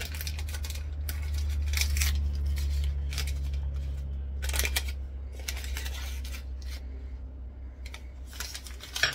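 Kitchen handling as dough ingredients are measured out: a run of short scrapes, rustles and clicks, with a sharp click near the end, over a steady low hum.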